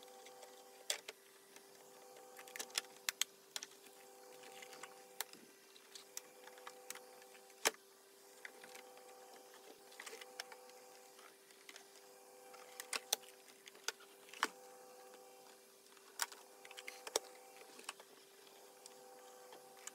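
Irregular plastic clicks and taps as the plastic housing of a Zelmer Cobra vacuum cleaner is handled and fitted together, the sharpest about eight seconds in, over a faint steady hum.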